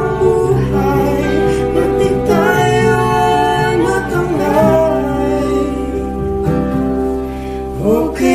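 A Tagalog love song: a voice singing over guitar accompaniment.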